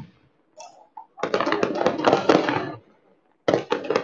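Fireworks and firecrackers going off in fast runs of sharp pops and crackles: a run lasting about a second and a half, a short gap, then another run starting near the end.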